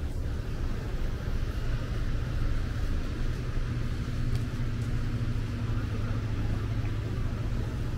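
Steady low rumble of a motor vehicle's engine on the street, with a faint extra hum in the middle.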